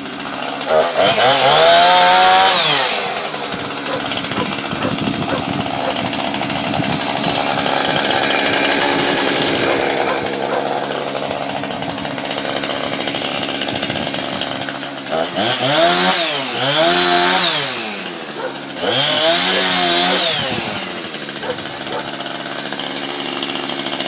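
Chainsaw running, idling in between three throttle-ups: about a second in, around fifteen seconds in and around nineteen seconds in. Each time the engine pitch rises, holds and drops back as the saw is worked into the fallen tree's limbs.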